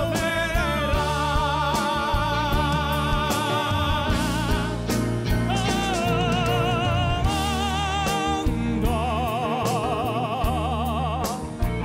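Lyric tenor singing long held notes with a wide vibrato in an operatic style over band accompaniment: one long note, a shorter one, then a final sustained note that fades out just before the end.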